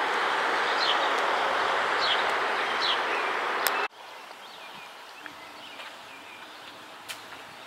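Outdoor ambience: a steady rush of background noise with a bird chirping repeatedly, short falling notes about once a second. Just before four seconds in it cuts abruptly to a much quieter background with faint bird calls and a few sharp clicks.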